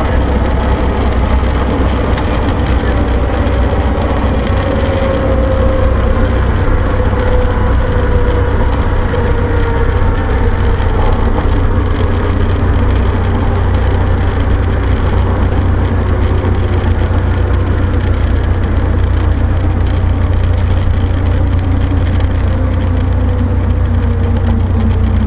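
Cessna 152's four-cylinder Lycoming O-235 engine and propeller heard from inside the cabin, running with a steady drone as the plane rolls along the runway; a faint tone falls slowly in pitch during the first half.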